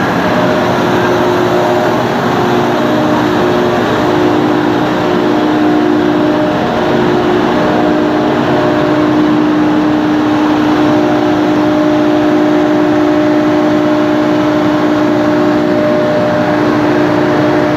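A machine running steadily on a test run: a continuous mechanical hum with a steady tone held throughout.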